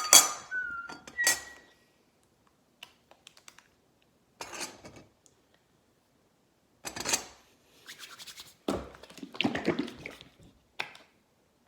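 Cutlery and dishes being handled: scattered scrapes and knocks of a utensil against a dish, the loudest knock right at the start with a short ringing after it.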